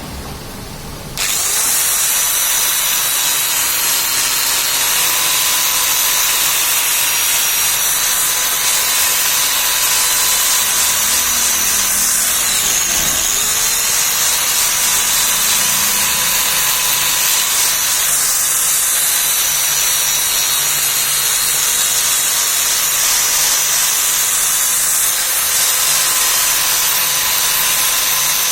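Oxy-acetylene torch flame hissing steadily, coming on suddenly about a second in.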